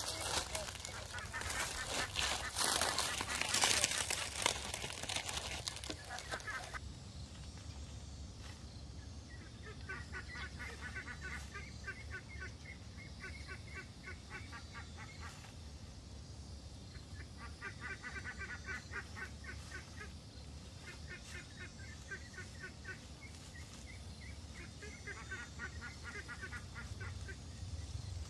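Birds calling, likely poultry, in repeated groups of rapid pulsed notes, each group lasting a few seconds. The calls follow a loud stretch of noise with sharp knocks over the first several seconds.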